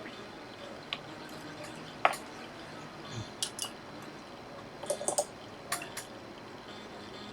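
Scattered small, sharp clicks and taps of tools and smartphone parts being handled during reassembly, the loudest about two seconds in and a quick cluster of several around five seconds in.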